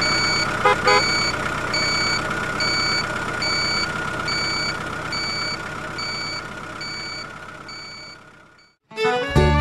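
Vehicle engine running with a reversing alarm beeping evenly, about three beeps every two seconds, and two short blips about a second in. The sound fades away near the end, and music starts just after.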